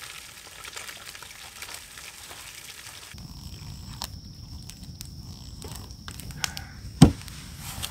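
Fish fillets sizzling in a frying pan for about three seconds. Then the sound changes abruptly to a steady high insect trill over a low rumble, with scattered clicks and one loud sharp knock about a second before the end.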